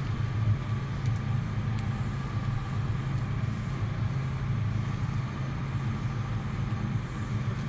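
A 150-kilowatt generator set's engine running steadily during a load test, a constant low hum.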